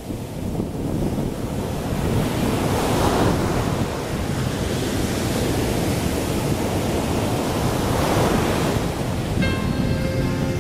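Rushing sea wind and small waves washing at the shore, fading in at the start and swelling twice. Music comes in near the end.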